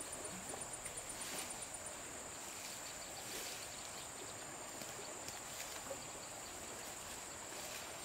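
Quiet outdoor ambience: a steady high-pitched insect drone with faint scattered ticks and rustles.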